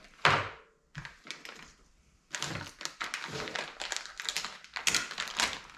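Plastic parts packaging being handled. There is a sharp rustle right at the start, then a short lull, then steady crinkling and clicking through the last three and a half seconds.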